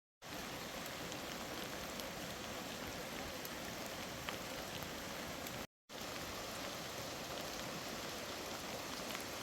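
Steady rain falling, an even hiss with a few scattered drops ticking. The sound cuts out completely for a moment about six seconds in.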